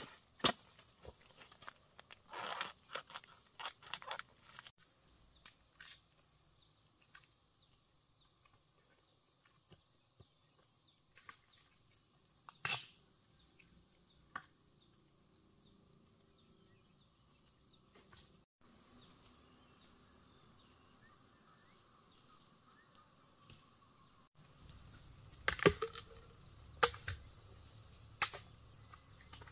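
Scattered sharp clicks and knocks, the loudest a handful near the end, over a faint steady high-pitched drone.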